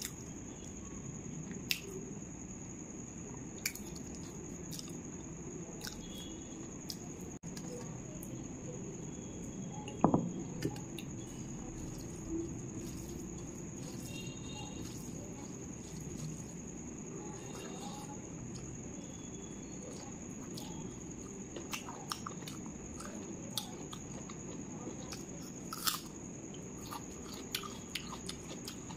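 Eating by hand: fingers squishing and mixing rice with chicken curry on a metal plate, with chewing and wet mouth sounds. Scattered small clicks run throughout, with one louder knock about ten seconds in, over a steady background hiss and a faint constant high whine.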